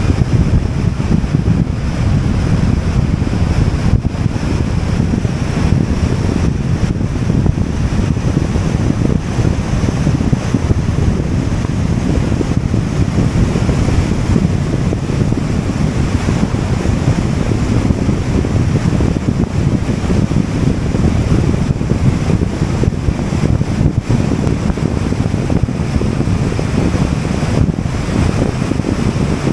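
Steady wind rush and road noise from a car driving at highway speed, heavy in the low end, with wind buffeting the microphone.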